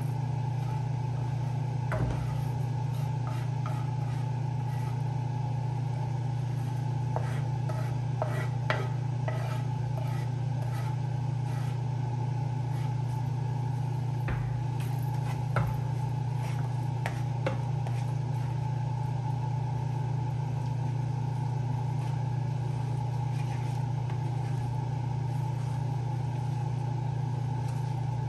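A steady low hum throughout, with scattered light taps and clicks of a spoon and ingredients against a cooking pot as chopped scallion, Scotch bonnet pepper and thyme go in, mostly in the first two-thirds.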